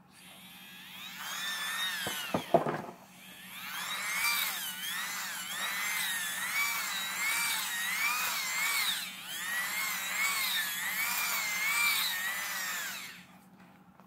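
Microwave turntable synchronous motor spun by hand as a generator, whirring with a high whine that wavers up and down as the turning speed changes, with a brief stop and a few clicks about three seconds in. It is generating enough voltage to light an LED bulb.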